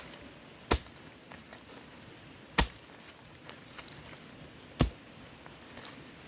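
Three sharp, single strikes of a hand tool on wood, about two seconds apart.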